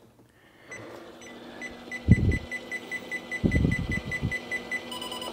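Rapid electronic beeping from a NordicTrack EXP 2000xi treadmill's electronics, about six beeps a second for roughly four seconds, changing to a different steady tone near the end. Two short low rumbles sound in between.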